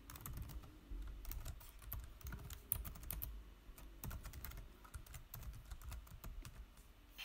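Typing on a computer keyboard: an irregular run of key clicks as a line of text is entered.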